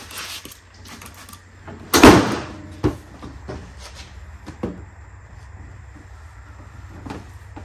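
Handling sounds of a trigger spray bottle of ceramic wax being used on a lawn tractor hood: one loud, short spray-and-knock about two seconds in, a smaller click just after, then scattered light clicks and soft cloth wiping over a steady low hum.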